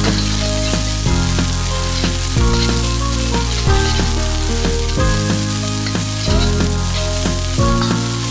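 Chopped onion and ginger sizzling steadily in hot oil in a wok on a high flame while a metal wok spatula stirs them. Light background music plays over it, its bass note changing about every second and a quarter.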